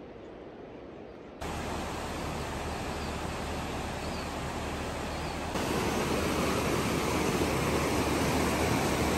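Fast glacial river rushing over rocks, a steady wash of water noise that comes in suddenly about a second and a half in and grows louder again about five and a half seconds in. Before it, a quieter steady outdoor hiss.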